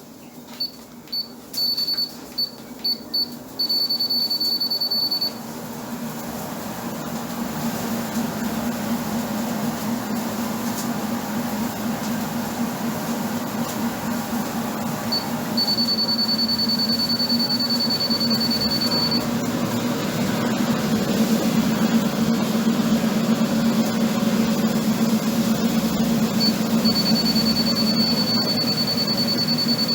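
Treadmill console beeping as the speed is raised, first several short beeps and then a held beep, with two more long beeps later. Under them the treadmill's motor and belt run with a steady hum that grows louder as the speed goes up.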